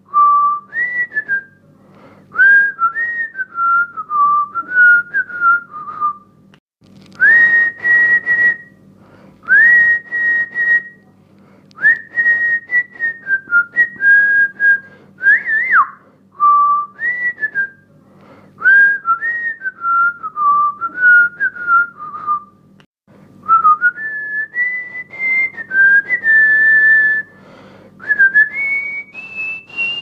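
A tune whistled in clear, pure notes, phrase after phrase with short breaks, the melody climbing higher near the end.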